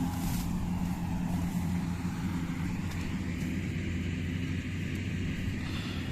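Kubota DC-60 rice combine harvester's diesel engine running steadily under load, a constant low drone with machinery hiss above it.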